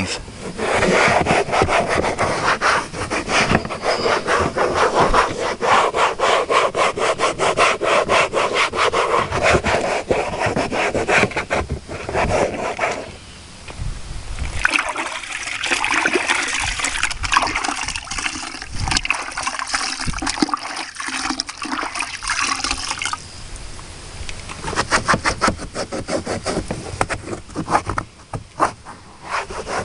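A fluffy towel scrubbing a plastic truck door panel in rapid back-and-forth strokes, with a short break about halfway through.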